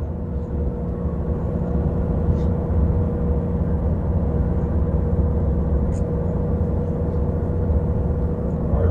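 Semi-truck diesel engine and road noise heard inside the cab while driving: a steady low rumble with a thin steady whine above it, and a couple of faint ticks.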